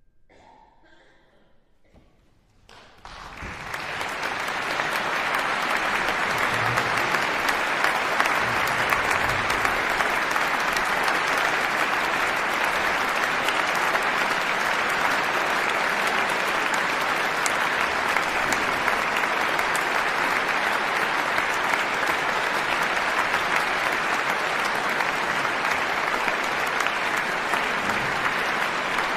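After about two seconds of near silence, a concert audience breaks into applause. The clapping builds within a second or two to a steady, dense ovation.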